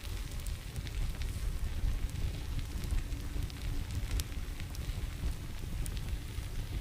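Fire burning contaminated wooden beehive parts: a steady low rumble with scattered sharp crackles.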